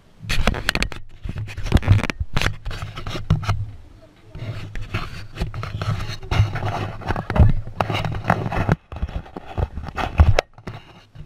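Action camera being handled and knocked against a pickup's roll bar: irregular close knocks, clicks and scrapes on the microphone, over a steady low hum.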